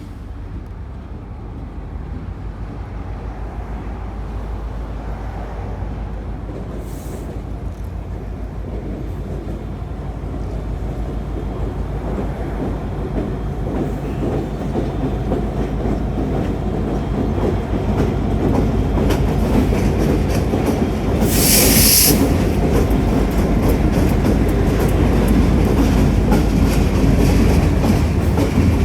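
Canadian Pacific freight train approaching and passing, its rumble growing steadily louder, with wheels clicking over the rail joints as it comes close. About two-thirds of the way through there is a short hiss lasting about a second.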